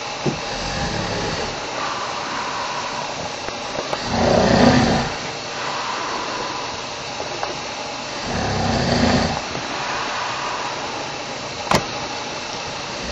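A man snoring loudly: three snores about four seconds apart, each lasting about a second, the middle one the loudest, over a steady background hiss. A single sharp click comes near the end.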